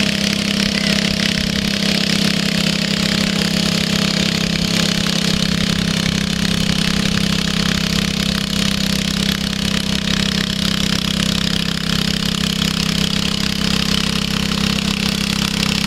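International Cub Cadet 10 hp garden tractor engine running steadily under load as it pulls a tractor-pull sled.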